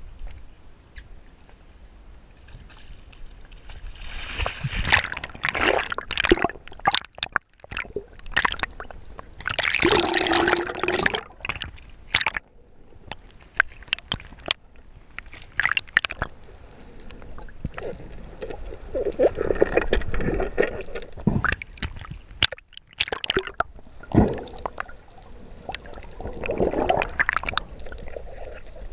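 Water gurgling and sloshing in uneven surges, heard from underwater, with bubbles rushing past as a spearfisher swims with a speargun.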